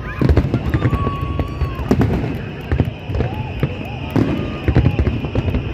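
Fireworks display: repeated bangs and crackling bursts of aerial shells, with deep thuds underneath.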